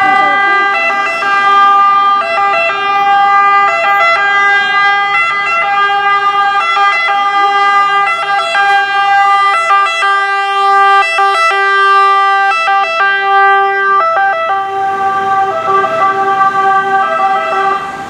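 Italian fire engine's two-tone siren sounding loudly and continuously, its pitch stepping back and forth about once a second.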